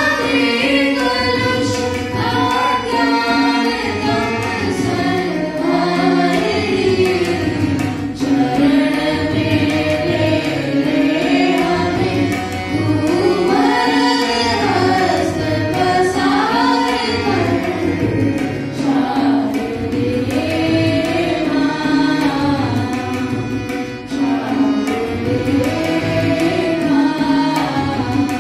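Girls' voices singing a devotional song to harmonium and tabla, with a steady held drone note beneath the melody and the tabla keeping a rhythm.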